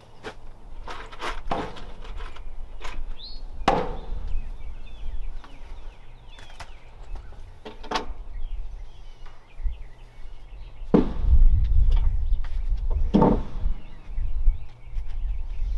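Hammer knocking on wooden boards: about seven separate sharp blows, a second or more apart, with small birds chirping faintly in the background. A low rumble joins about two-thirds of the way through.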